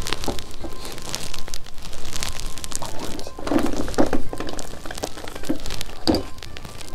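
Clicks, knocks and light crinkling of chopsticks and fingers handling soft food on a plate, with the loudest knocks about halfway through and again near the end, over faint background music.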